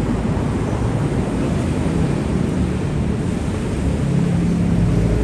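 Busy city street ambience: a steady rumble of road traffic, with a vehicle engine's hum growing a little louder near the end.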